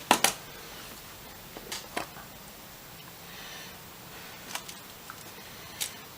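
Sharp clicks and taps of tools and parts being handled during soldering work, a loud double tap right at the start, then scattered lighter ticks.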